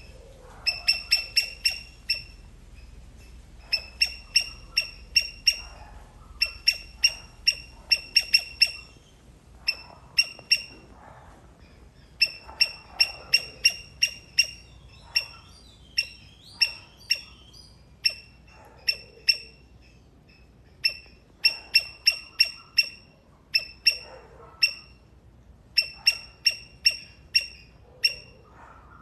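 Palm squirrel calling: a long series of sharp, high chips, about four or five a second, in bouts broken by short pauses.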